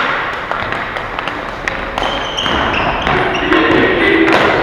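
Ball hockey play: scattered clacks and knocks of sticks and ball, with short high squeaks from about two seconds in and some players' shouting near the end.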